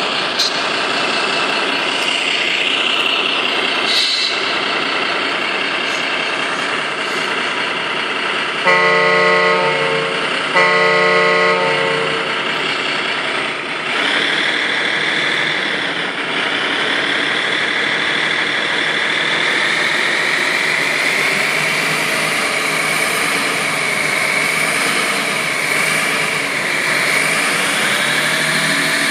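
Steady vehicle engine noise with two long horn honks, one about nine seconds in and one just after, the loudest sounds in the stretch; after them the engine sound goes on with a slowly wavering whine.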